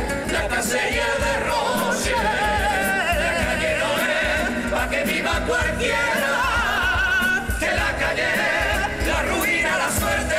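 Cádiz carnival comparsa: a male choir singing in harmony to Spanish guitars, over a steady drum beat.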